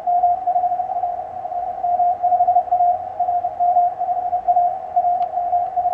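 Morse code (CW) signal from a ham radio receiver on the 15-metre band: a single steady tone keyed on and off, spelling out the call sign RM5A over and over, with band hiss behind it. The endless repetition is what a call-sign macro key held down sends, with the key stuck or the operator asleep on it.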